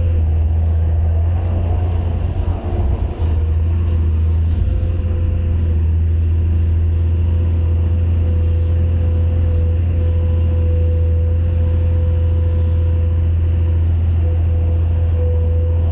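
Excavator engine running steadily with a deep, even drone, joined about four seconds in by a steady whine that holds on.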